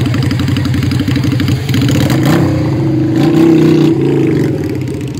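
Large motorcycle engines running at idle with a rapid pulsing beat. One is revved about two seconds in, its pitch rising and holding, then dropping back near four seconds.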